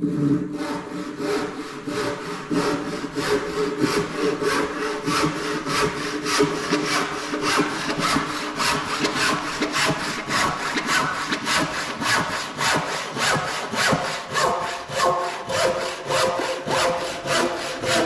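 Handsaw cutting across the end of an 8x3 timber runner, with steady, even strokes at about three a second. The sawing starts suddenly at the outset.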